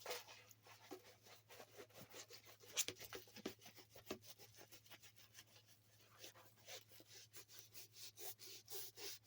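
Faint, irregular rustling and crinkling of a diamond painting canvas being rolled by hand to make it lie flat, with one sharper tick about three seconds in.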